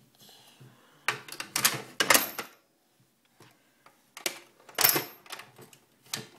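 Hard plastic toy parts clattering and clicking as a toddler grabs and presses a toy on a tabletop: a quick run of knocks about a second in, then single sharp clicks a few seconds later.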